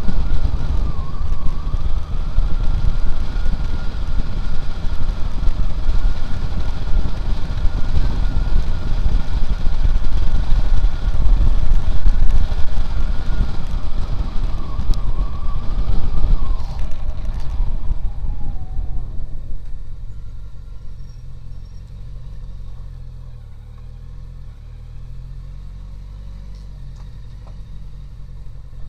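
Honda CB750's inline-four engine running at road speed with wind noise over it, then easing off about two thirds of the way through and settling to a low, steady idle as the bike rolls to a stop.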